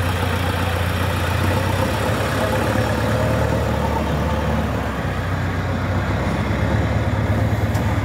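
Diesel engine of a JCB 3DX backhoe loader running as the machine moves back from the trolley with its front bucket raised, just after tipping its load. The low engine note eases off for a few seconds in the middle, then picks up again near the end.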